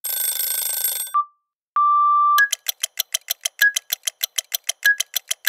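Clock-themed intro sound design: a brief hiss, a short beep and then a held beep about half a second long. After that comes fast, even clock-like ticking, about six or seven ticks a second, with a higher ping about every second and a bit, leading into music.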